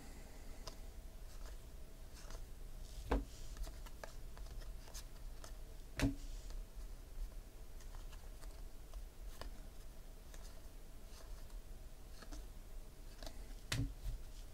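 Thin, glossy baseball cards being slid one by one off a stack and into the other hand, making faint rustles and light ticks, with three sharper taps spread through.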